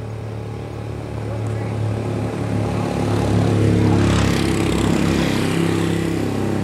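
A motor vehicle's engine passes close by. Over a steady low engine hum, it swells to a peak about four seconds in and then eases off.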